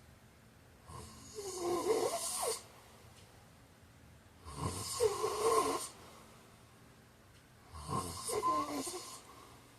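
A man snoring, three snores about three and a half seconds apart, each lasting a second or two, with quiet breathing gaps between them.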